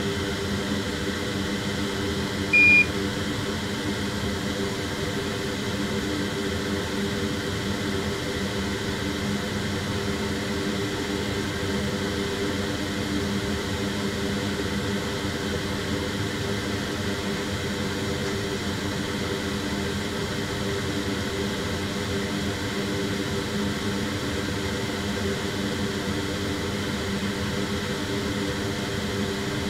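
Steady fan-like hum from bench equipment, with one short, high electronic beep about two and a half seconds in.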